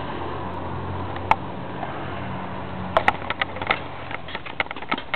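A fork clicking and scraping against a plate while noodles are eaten: one click early, then a quick irregular run of light clicks from a few seconds in, over a steady low hum.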